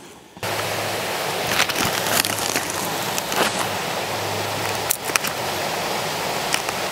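Steady rushing of a jungle creek, with a faint low hum for the first few seconds and a few short clicks of handling.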